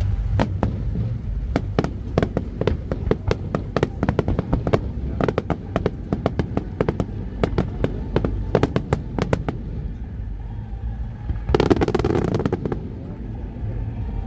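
Fireworks display: rapid, irregular cracks and bangs of exploding shells, thinning out after a while, then a louder rushing burst lasting about a second near the end.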